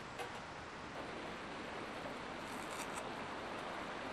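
Mountain river flowing over rocks: a steady rushing hiss, with a few light clicks just after the start and again around three seconds in.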